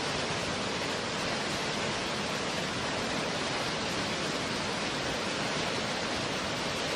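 River water rushing over rocky rapids: a steady, even roar of white water.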